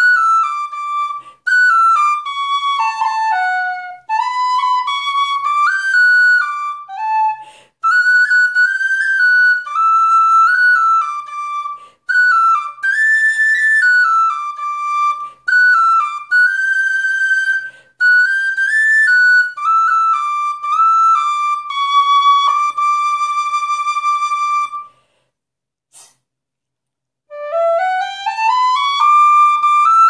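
High D Irish tin whistle with a metal body and a guaiacwood fipple block, played solo as a tune in phrases with short breaths between them. A held note is followed by a brief pause, then a quick rising run of notes up the scale near the end.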